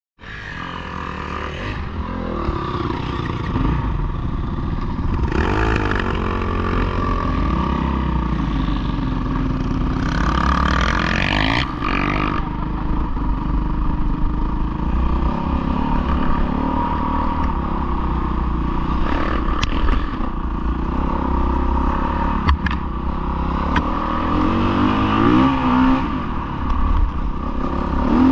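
Off-road motorcycle engines running, with the revs rising and falling several times over a steady low rumble. A few sharp knocks can be heard about two-thirds of the way through.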